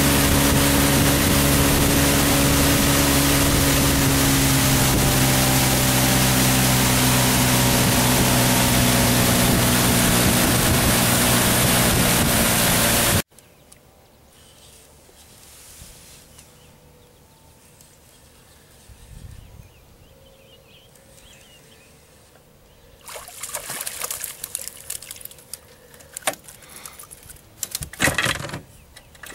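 Outboard motor running steadily at cruising speed, with a rush of wind and water as the boat moves. About 13 seconds in it gives way abruptly to much quieter open-water sound. Near the end come rustling and clicks of handling.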